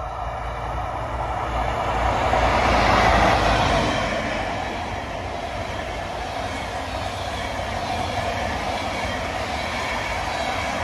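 Locomotive-hauled Intercity train passing close by on mainline track. It is loudest about three seconds in as the front of the train goes by, then gives way to the steady rolling noise of a long rake of coaches' wheels on the rails.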